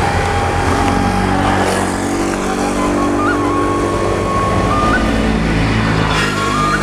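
Motorcycles running along a road, one going by close about six seconds in.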